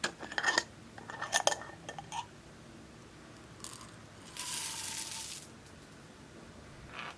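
Small hard plastic makeup containers being handled: quick clusters of clicks and clatters, then about four and a half seconds in a short hissing rustle lasting about a second.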